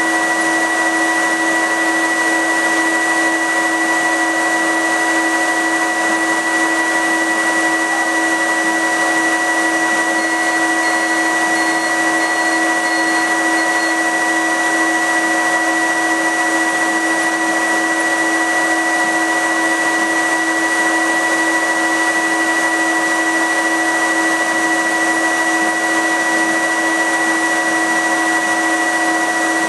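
Laser cutter's fume filter unit running loud and steady, a rushing blower with a steady whine held over it. A short run of faint high chirps comes about a third of the way in.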